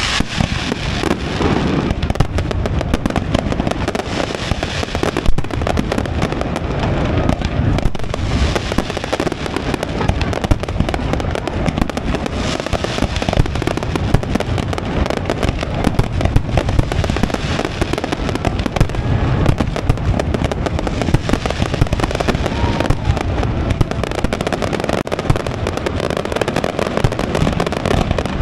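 Fireworks display: a dense, unbroken barrage of bangs and crackling bursts, with one especially loud bang about five seconds in.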